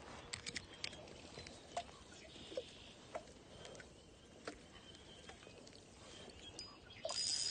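Faint, irregular clicks and ticks from a Pflueger Monarch spinning reel and rod being worked during a lure retrieve. Near the end a louder rustling hiss with a faint high ring sets in.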